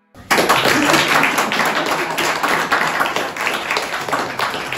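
A group of people clapping hands together, starting suddenly just after the start.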